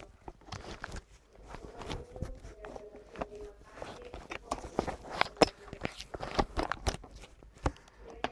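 Irregular clicks, taps and knocks, several close together, the loudest about five and a half seconds in.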